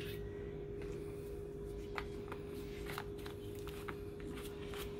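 Faint clicks and light taps from gloved hands handling a plastic bottle of car wax and an applicator pad, over a steady hum.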